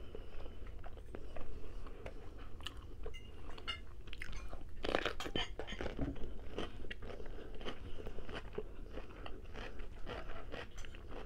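Close-miked chewing of a mouthful of food, with wet mouth clicks and small crunches, and a louder run of crunches about five seconds in.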